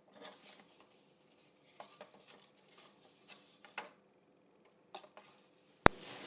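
Scattered light taps and scrapes of hands handling craft materials and tools, with one sharp click near the end.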